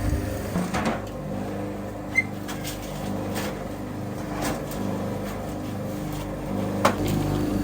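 Steady low hum of a running machine motor, with a sharp click about two seconds in and a louder knock near the end.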